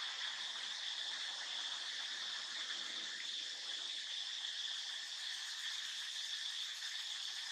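Steady, high-pitched chorus of calling insects that runs on without a break.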